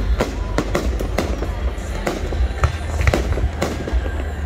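Aerial fireworks shells bursting in quick succession: a dense, irregular run of sharp bangs, about three to four a second, over a continuous low rumble.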